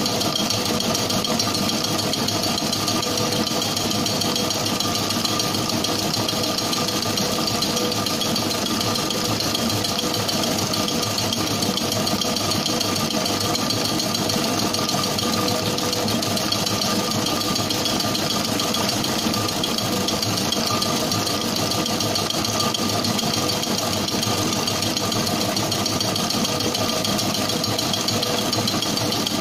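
Bakery planetary mixing machine running at speed with a steady, unchanging hum from its motor and gear drive, the wire whisk beating sponge cake batter in a stainless steel bowl.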